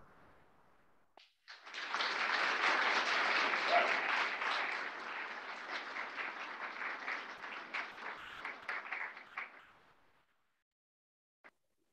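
Audience applauding: a crowd's clapping starts about a second and a half in, holds steady, then thins out and dies away about ten seconds in.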